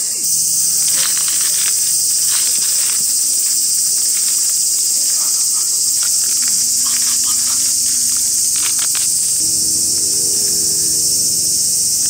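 Cicadas droning in a dense, steady high-pitched hiss, with short bursts of dry rustling and crackling as the roasted corn husks are peeled back.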